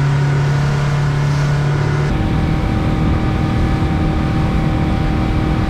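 A 150 hp outboard motor running steadily at cruising speed, with the rush of the hull through the water and wind. About two seconds in the sound changes: the low engine drone gives way to a rougher rumble of wind buffeting with a steadier, higher hum.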